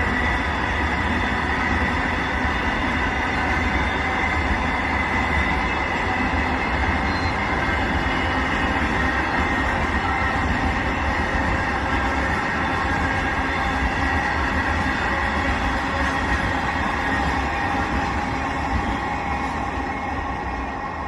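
Freight train rolling past steadily: a continuous rumble of wagons on the rails, easing off slightly near the end.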